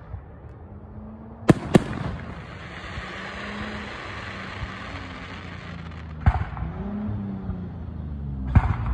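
Aerial fireworks shells bursting: two sharp bangs in quick succession about a second and a half in, another about six seconds in, and more near the end, with a steady hiss between them.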